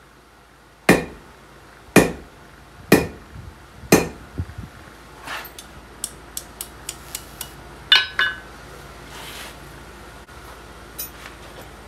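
A hand hammer striking hot steel on an anvil while a nail is forged: four heavy ringing blows about a second apart, then a run of quick light taps, then two more blows in quick succession.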